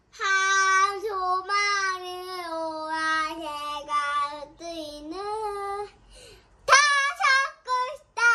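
A young girl singing in long, held, high notes, phrase after phrase; about six seconds in she breaks off briefly, then goes on with a few short, quick notes.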